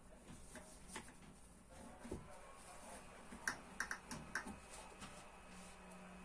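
Light clicks and taps of small hard skateboard parts being handled during a bearing change, with a quick cluster of sharp clicks about three and a half seconds in. A low steady hum starts near the end.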